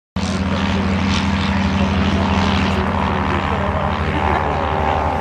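Propeller aircraft engine running with a steady drone, cutting in abruptly just after the start.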